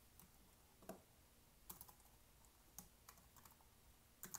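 Faint, scattered keystrokes on a computer keyboard, a handful of separate clicks about a second apart, as a sentence is typed out.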